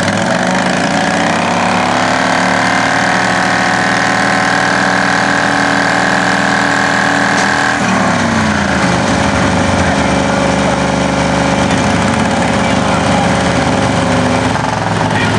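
Engines of two lifted riding lawn mowers revving hard under load as they push against each other: the pitch climbs over the first couple of seconds, holds high, then drops about eight seconds in and settles to a lower steady run.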